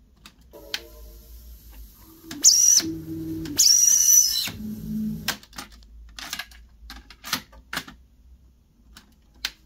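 Mechanical clicks and clunks of a Proton AD-200 cassette deck's piano-key transport buttons being pressed and the tape mechanism engaging, a dozen or so sharp clicks in all. Two short, louder pitched passages come from the deck between about two and a half and five seconds in.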